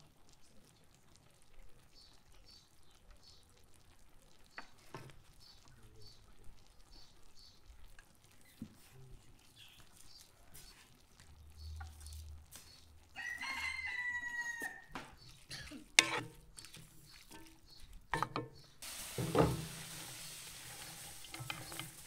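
A rooster crowing once, one call of about two seconds in the middle, over faint outdoor background. Small clicks and knocks come around it, a sharp one just after the crow, and a steady hiss with a couple of knocks sets in near the end.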